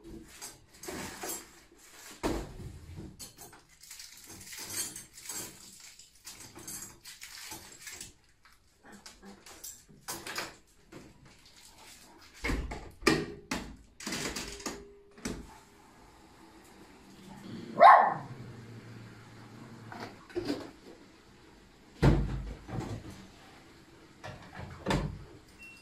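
Clatter of crockery, cutlery and appliance doors as a dishwasher is unloaded, with a small spaniel giving one loud bark about two-thirds of the way through.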